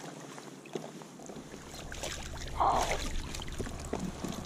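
Water splashing and dripping as a yellow perch is scooped up in a landing net beside an inflatable kayak, with small clicks of handling and one louder splash about two and a half seconds in. A low wind rumble on the microphone comes in about a second in.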